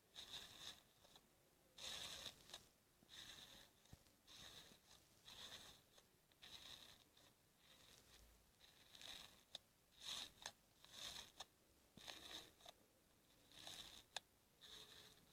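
Faint crackling and squishing of slime being pressed and stretched, in short bursts about once a second, with a few sharp pops and clicks near the end.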